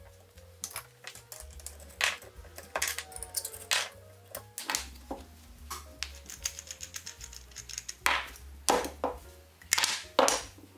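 Background music, with a series of sharp metallic clinks and knocks as steel hose clamps are taken off a freshly soldered brass tube and the parts are set down on a workbench. The knocks come thickest near the end.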